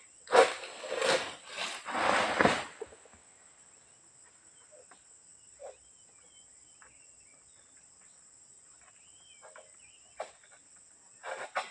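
Oil palm harvesting sickle on a long pole jerked through a palm frond: a run of sharp cracking strokes, ending in a couple of seconds of tearing and crackling as the frond comes loose. Then faint chirps, a single knock, and more sharp cracks near the end.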